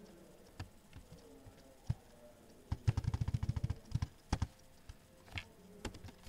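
Typing on a computer keyboard: a few scattered key clicks, then a quick run of keystrokes about three seconds in, followed by a handful of single key presses.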